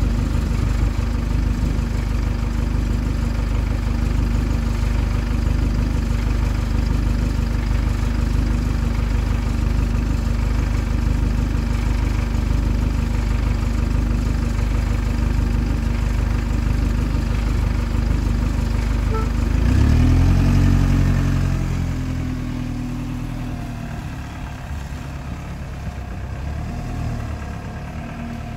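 Single-decker bus's diesel engine idling steadily with a constant hum, heard close up. About twenty seconds in it revs up as the bus pulls away, the engine note rising and then fading as the bus drives off.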